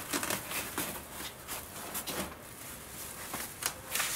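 Padded, foil-lined wing bag rustling and scraping against a wooden crate and foam packing as it is pulled out, a string of brief irregular scuffs and rustles that grow louder near the end.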